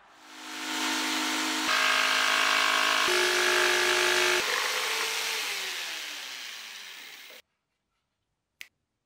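Electric jigsaw with a fine-tooth blade cutting PVC pipe: a steady motor whine over the rasp of the blade. About four and a half seconds in the motor winds down, falling in pitch, and the sound cuts off suddenly; a single faint click follows near the end.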